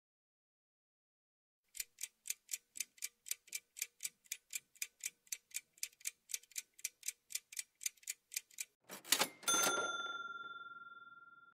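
Countdown-timer clock-ticking sound effect, about four ticks a second for roughly seven seconds. It ends in a short swish and a bright ding that rings and fades, marking the answer reveal.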